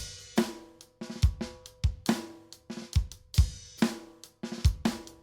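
Drum kit playing a rock beat on its own: kick drum, snare and cymbals struck in a steady pattern.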